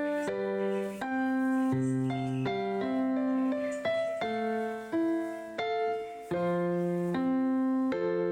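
Keyboard music: a run of sustained chords, each held for about half a second to a second before the next.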